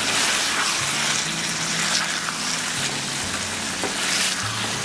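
Potato and cluster-bean curry sizzling steadily in a steel kadai as it simmers in the liquid from added yogurt, steaming.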